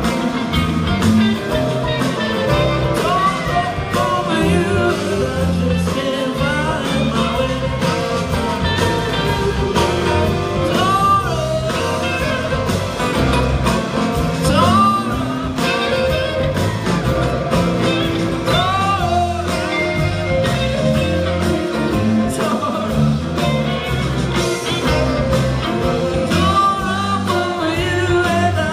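Live band playing a song with a lead vocal over acoustic and electric guitars, bass and drums, with a steady beat.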